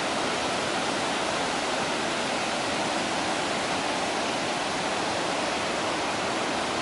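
Waterfall rushing steadily, an even wash of falling water with no breaks.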